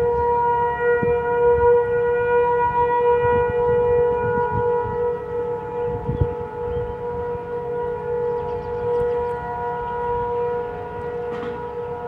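Federal Signal 500 civil defense tornado siren sounding a steady, loud tone during a test. It holds one pitch, and its loudness slowly wavers and eases a little toward the end.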